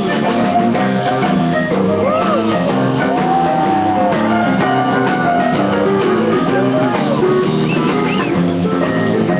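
Live rock band playing a blues-style song with electric keyboard, during an instrumental stretch; a melody line bends up and down in pitch over the chords.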